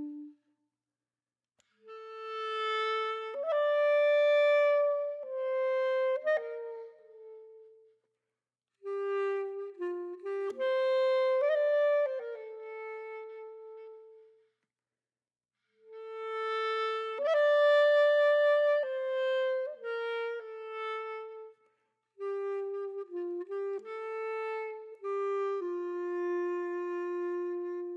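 Background music: a slow solo woodwind melody of held notes, played in four phrases with short silent pauses between them.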